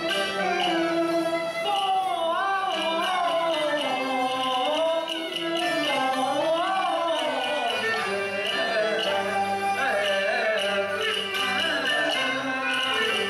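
Cantonese opera aria music from a live accompaniment ensemble: a lead melody sliding up and down in pitch with a wavering tone, over steady accompaniment.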